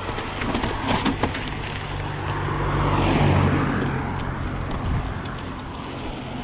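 Nukeproof Mega 275 mountain bike rolling down a rooty footpath: continuous riding noise with a few sharp knocks over the roots early on, and a low hum that swells and fades in the middle.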